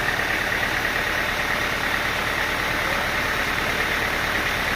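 Sawmill engine running steadily at idle, with an even low pulse and a steady higher whine over it.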